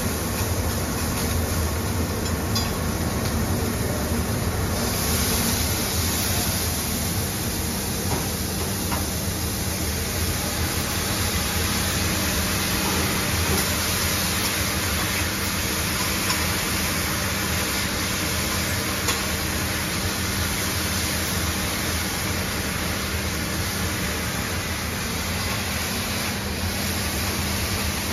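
Food sizzling and steaming on a commercial flat-top griddle over a steady low rumble. The hiss grows brighter about five seconds in as steam rises, with a few light clicks of metal spatulas.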